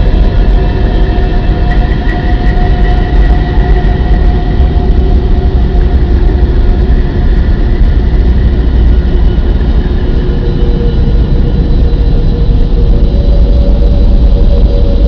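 Steady, loud low rumbling drone with a few faint held tones above it that slowly drift in pitch, played as a recording of the Earth's hum.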